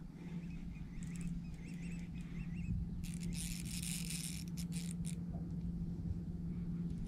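Birds chirping in a quick run of short calls over a steady low hum, then a sudden rushing hiss lasting about two seconds.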